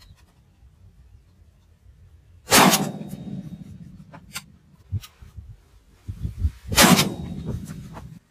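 Two shots from a suppressed air rifle, about four seconds apart, each with a short trailing tail, and a few light clicks of the action between them.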